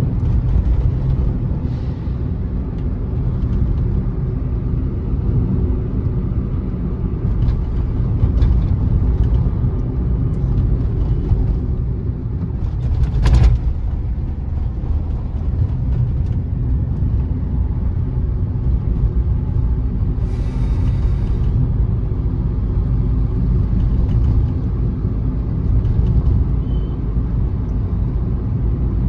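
Car cabin noise while driving: a steady low rumble of engine and tyres on the road. A single sharp knock cuts through about halfway in, and a brief hiss passes about two-thirds of the way through.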